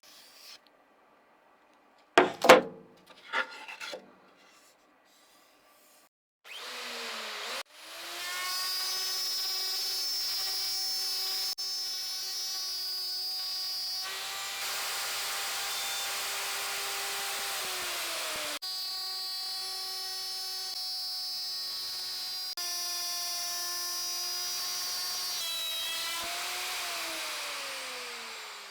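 A few sharp knocks, then a small electric power tool running steadily with a high motor whine for about twenty seconds, working against a surface; its pitch falls as it spins down near the end.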